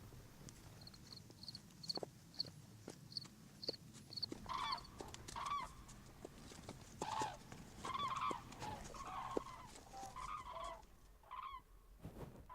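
Birds calling: a high, short note repeated about twice a second for a few seconds, then from about four seconds in a run of lower, harsher calls, with scattered light knocks.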